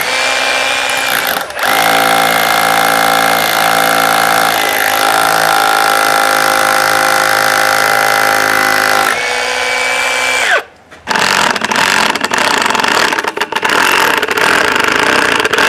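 Cordless drill running with a long masonry bit, boring through a timber door-frame post into the brick behind; its motor whine holds steady, dips briefly about a second and a half in, and rises just before it stops after about ten seconds. Then a Metabo cordless impact driver rattles in short, stop-start bursts as it drives a long screw through the post into the wall.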